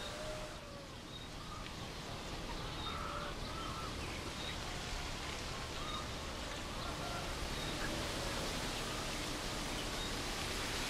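Outdoor background ambience: a steady hiss of noise with faint, scattered short bird chirps.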